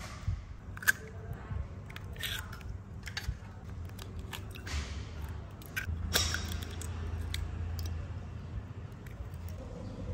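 Scattered clicks, scrapes and rustles of hands and utensils working food, over a steady low hum that grows stronger about six seconds in.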